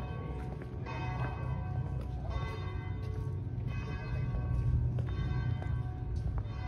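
Church bells ringing, a new stroke about every three-quarters of a second, each one ringing on into the next.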